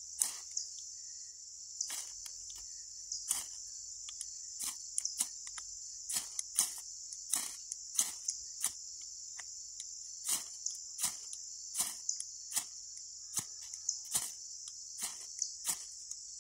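Rapid, repeated scrapes of a striker down a Bayite half-inch ferrocerium rod, about one or two a second, throwing sparks onto crushed fire-starter dust that is slow to catch. Crickets trill steadily behind.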